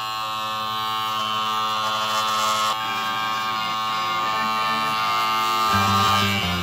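Rock music over the steady electric buzz of a handheld rug carving clipper shearing tufted yarn pile; the music's bass comes back in near the end.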